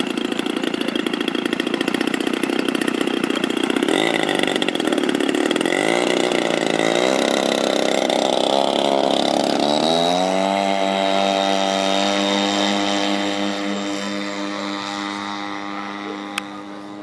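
Engine of a radio-controlled P-51 Mustang model running hard through its takeoff run. About ten seconds in, its pitch falls and settles into a steady drone that fades as the plane climbs away. There is a single sharp click near the end.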